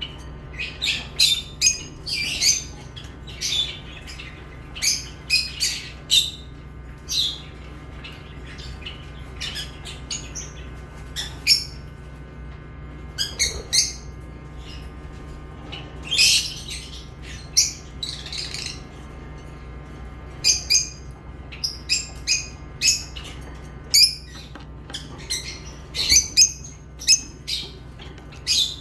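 Lovebirds chirping: short, sharp high-pitched calls coming in irregular clusters, sometimes several a second, with brief gaps between, over a steady low hum.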